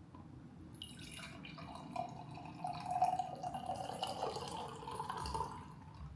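Water running from a kitchen tap into a sink, starting about a second in and stopping shortly before the end.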